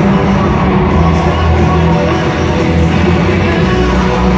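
Loud rock music played over an arena's sound system.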